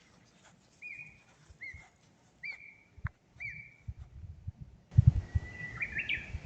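A songbird calling: four short arched chirps roughly a second apart, then a brief trill about two seconds later. Low thumps and rumble come in from about five seconds on.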